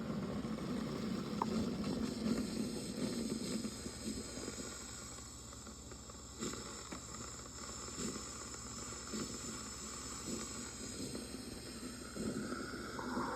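DeLonghi Magnifica S espresso machine hissing and gurgling on a test run of water through it, with irregular small crackles. The hiss grows quieter about a third of the way in. The test run fails: the water does not come out where it should.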